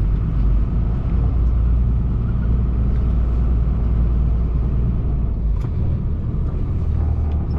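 Truck engine running at low speed with a steady low rumble while the truck manoeuvres up to a loading dock; the low drone shifts in pitch about five and a half seconds in.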